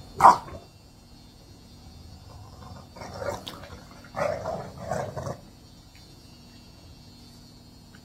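English bulldogs, an adult and a puppy, growling and barking as they tussle over a treat: one loud short sound just after the start, then a cluster of several shorter ones from about three to five seconds in.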